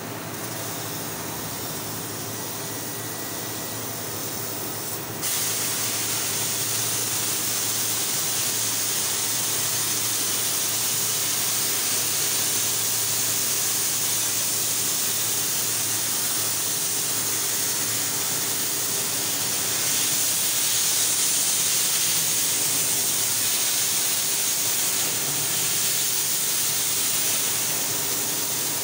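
CNC laser cutting machine cutting steel sheet: a steady machine hum, then about five seconds in the loud, even hiss of assist gas jetting from the cutting nozzle sets in as the beam pierces and cuts, and holds steady.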